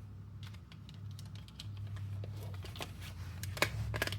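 Light clicks and taps of small metal and plastic parts being handled and fitted together while an airsoft rifle's HPA engine is installed, irregular and several a second, with a louder click about three and a half seconds in, over a low steady hum.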